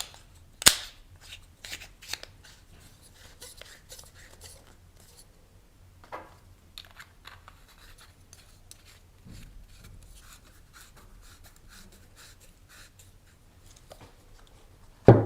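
Hands handling a flashlight and its battery parts: scattered small clicks and taps, with a sharp click about a second in and another near the end.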